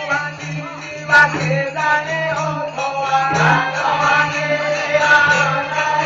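Live folk music for a dance drama: singing with instrumental accompaniment and jingling percussion, thin and band-limited as picked up by an old keypad phone's microphone. A sharp click stands out about a second in.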